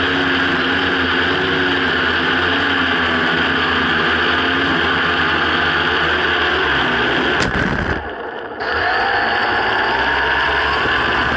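Quadcopter's electric motors and propellers buzzing steadily while hovering. About seven and a half seconds in there is a sharp click, and the buzz drops for about half a second. It then comes back with a rising whine as the motors speed up again.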